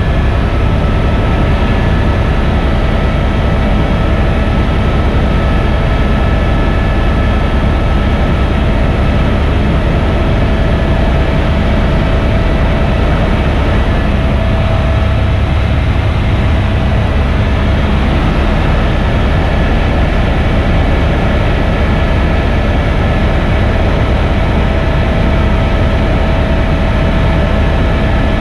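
Helicopter's engine and rotors running steadily in cruise flight, heard from inside the cabin: a loud, unchanging drone with a constant high whine made of several held tones.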